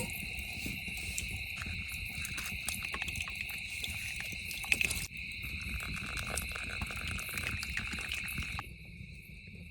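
Steady chorus of crickets chirping at night, with scattered small clicks in the first half. The sound drops lower and thinner near the end.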